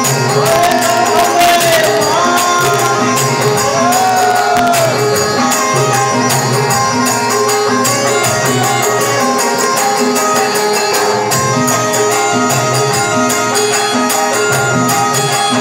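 Live devotional folk music: harmonium and electronic keyboard holding a melody over a steady hand-drum rhythm with jingling percussion. A few sliding melodic phrases come in during the first five seconds.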